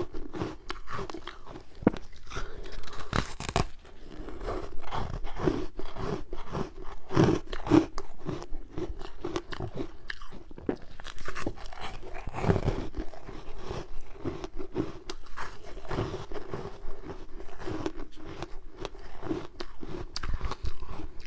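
Ice being bitten and chewed: a dense, unbroken run of crunches, several a second.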